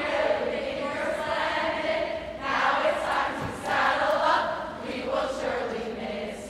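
A crowd of many voices chanting together in long, held calls that rise and fall.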